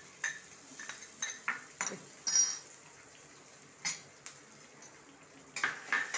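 Metal clinks and knocks of a bowl and spatula against an aluminium kadhai as chopped raw potato is tipped into hot oil, with one loud ringing clank about two seconds in. Near the end a metal spatula scrapes and stirs in the pan.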